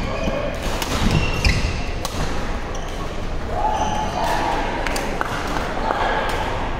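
Badminton play on a hardwood gym floor: several sharp racket strikes on the shuttlecock and players' shoes squeaking and thudding on the court, with voices in the background.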